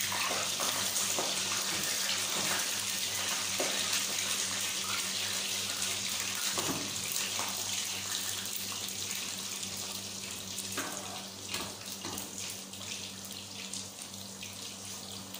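Chicken nuggets deep-frying in hot oil in a kadai: a steady sizzling hiss that eases a little near the end. A few light clicks come from a metal spoon turning them in the pan.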